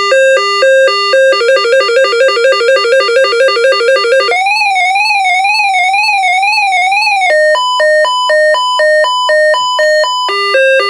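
RadioShack PRO-405 weather alert radio sounding its test alert tones through its speaker. It steps through several patterns: a slow high-low two-tone alternation, a faster two-tone trill, a warbling tone from about four seconds in, and steady repeated beeps from about seven seconds in, with the two-tone pattern returning near the end. These are its test tones for the alert, watch and advisory levels.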